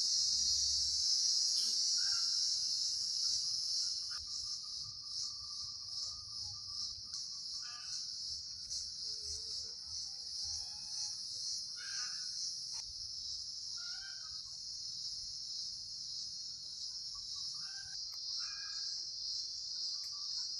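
Steady high-pitched insect chorus, with short bird calls breaking in every few seconds.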